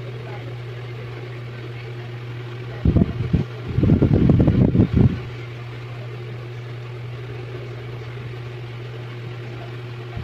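Steady low mechanical hum, broken by louder, irregular low rumbling from about three to five seconds in.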